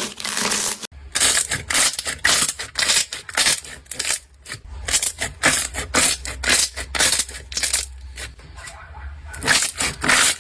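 Slime being squeezed and pressed by hand, giving a dense, irregular run of crackling clicks and pops.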